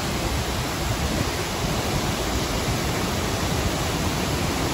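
Waterfall pouring down a rock face into a shallow pool: a steady, even rush of falling water.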